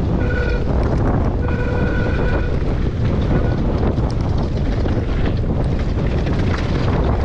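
Mountain bike descending a rough dirt trail: wind buffeting the microphone, tyres rumbling, and the frame and chain rattling over bumps. A short high-pitched whine from the bike sounds three times in the first few seconds, the second lasting about a second.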